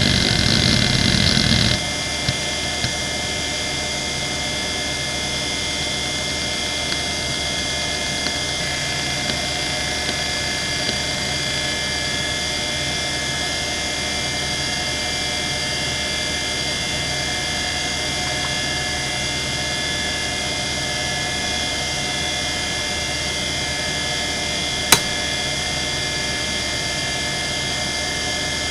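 Quantum ProDrive LPS 270AT 3.5-inch IDE hard drive (4500 rpm) working through a benchmark. For the first couple of seconds its heads seek noisily through the random seek test, then the noise drops away and the spindle hums steadily with a few faint head ticks, and one sharp click about 25 seconds in.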